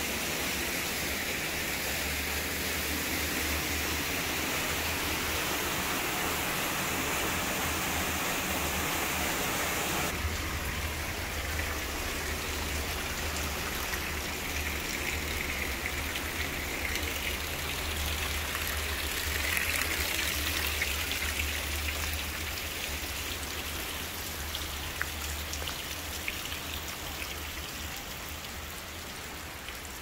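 Water spilling from a wooden flume onto an overshot waterwheel and splashing through its buckets, a steady rush. About ten seconds in it changes abruptly to a softer running-water hiss that slowly fades, with a few faint ticks near the end.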